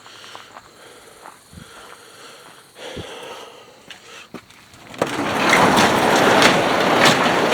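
A building's door being opened: a few faint clicks and knocks, then about five seconds in a loud rattling rumble as the large door moves open.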